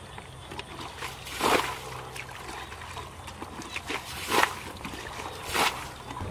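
Muddy water bailed out of a shallow ditch with a plastic bucket: three splashes as scoops of water are flung out, with slosh and trickle between.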